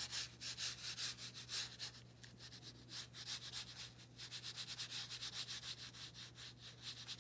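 Watercolour brush scrubbing paint onto textured watercolour paper in quick short strokes, several a second, with a brief let-up about two seconds in.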